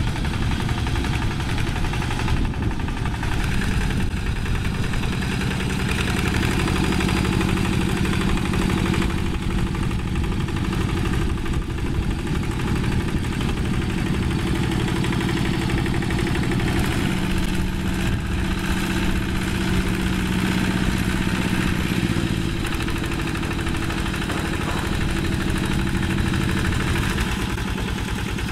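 Two-wheel hand tractor's single-cylinder diesel engine running steadily under load as the tractor pulls its implement through paddy mud; the engine note shifts slightly about three-quarters of the way in.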